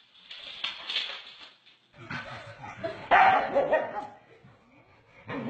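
A dog barking and yipping in loud, pitched calls that start about two seconds in and peak about a second later.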